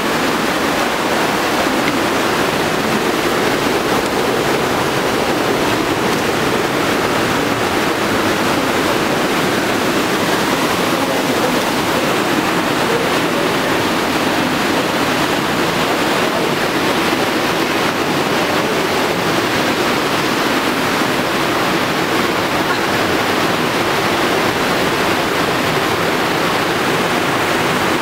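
Whitewater torrent cascading through a narrow rock gorge: a steady, loud rush of falling and churning water.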